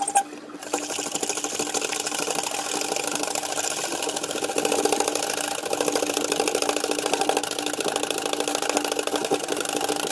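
A small motor running steadily with a fast, even buzz, broken by a short stop just after the start.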